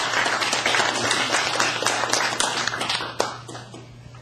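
Audience applauding, many hands clapping together, dying away about three seconds in.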